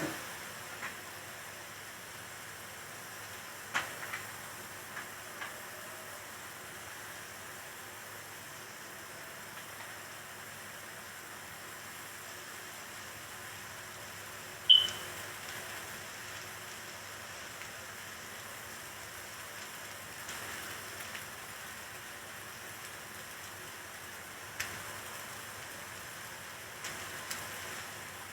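A steady low hiss, broken by a few light knocks and one sharp clink about halfway through.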